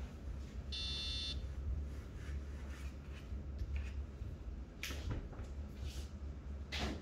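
A steady low hum, a short high beep about a second in, and a few sharp clicks near the end.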